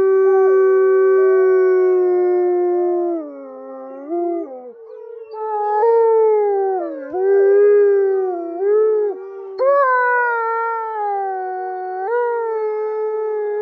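Wolf howling: one long howl held steady for about three seconds, then a run of howls that start high and slide down, sometimes bending back up before they fade.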